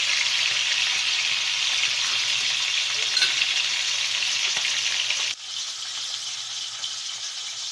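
Whole tilapia frying in hot oil in a small pan: a steady sizzle that drops abruptly quieter about five seconds in.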